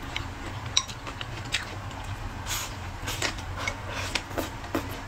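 Eating sounds: wooden chopsticks clicking against a ceramic bowl, with mouth sounds of taking in and chewing food, a scatter of small clicks and smacks.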